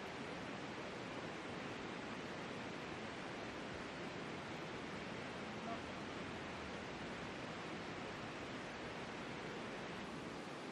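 Steady, even rushing of a river flowing past the camp.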